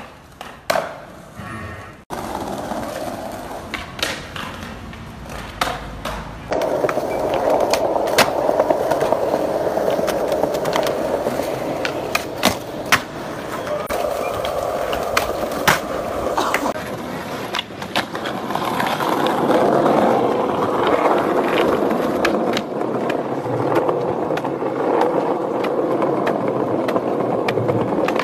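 Skateboard wheels rolling on concrete, broken by repeated sharp pops and landing cracks of the board, with the trucks scraping along a concrete ledge in a grind.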